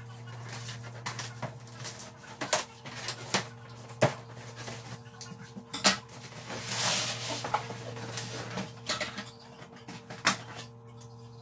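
Scissors cutting packing tape and cardboard on a cardboard box, with repeated clicks, knocks and cardboard rustling, and a longer rasping rustle about seven seconds in. A steady low hum runs underneath.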